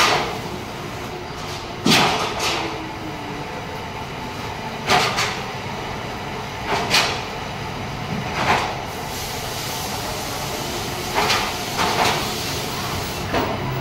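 Steady factory-floor machinery hum, broken by short, sharp noisy bursts every one to three seconds from work at the panel bench, about nine in all.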